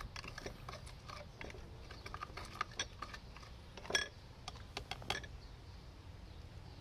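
Yellow plastic spoon stirring wet mud in a plastic cup, giving scattered light clicks and scrapes as it knocks the cup; the sharpest knocks come about four and five seconds in.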